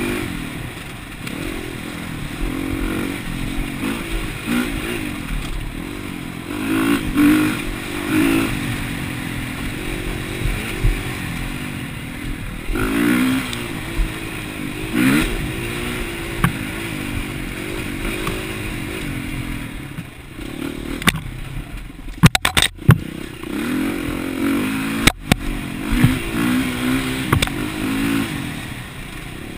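Dirt bike engine being ridden, its note rising and falling again and again with the throttle. A cluster of sharp clacks comes about three quarters of the way through, and one more a few seconds later.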